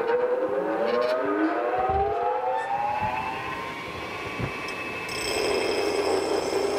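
Large Baldor pedestal grinder still spinning up after being switched on, its motor whine rising in pitch and levelling off. About five seconds in, a steel part is pressed against the wheel and the harsh noise of grinding steel takes over as a profile is ground on the part's end.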